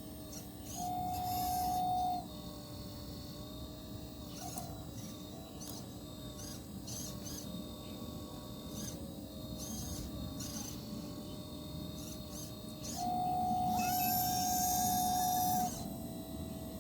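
Small electric motors of a 1/12-scale RC excavator whining steadily. The whine jumps louder and slightly higher twice: about a second in for just over a second, and again near the end for nearly three seconds. Light clicks sound throughout.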